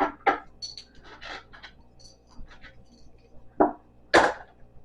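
Handling of table parts while removing the base: a few short knocks and scrapes, with small metallic clinks, and two louder knocks near the end.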